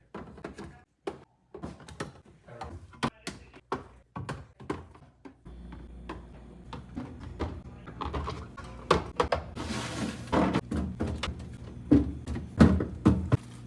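Groceries being handled and put away in a fridge: a quick run of knocks, taps and clunks as items are set down on shelves, with a rustle of about a second a little past the middle. A steady low hum comes in about a third of the way through.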